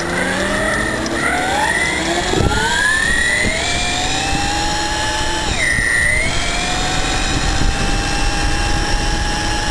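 Electric bicycle's Astroflight RC motor and reduction drive whining, the whine climbing in pitch as the bike accelerates from a stop and then holding steady at speed. Near six seconds in the whine dips briefly and climbs back. Wind and road noise rush underneath.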